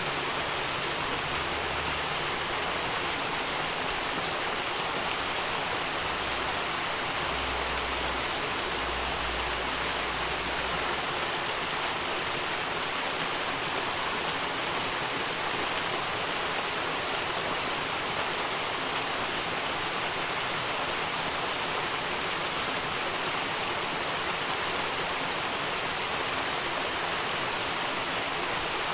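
Small mountain stream rushing and splashing steadily.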